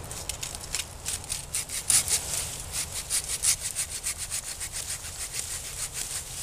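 A hand-held blade sawing back and forth through a woody vine in quick, rasping strokes, about five a second, that pick up about a second and a half in.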